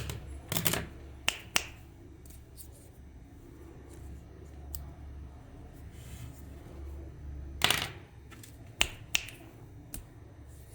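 Several sharp snaps and clicks, a few in the first two seconds and a few more about eight to nine seconds in, over a low steady hum.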